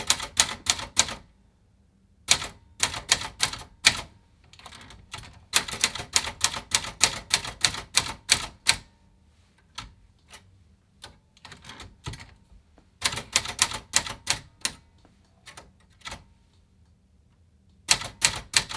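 Remington Streamliner manual portable typewriter being typed on: runs of sharp key strikes hitting the platen, broken by short pauses.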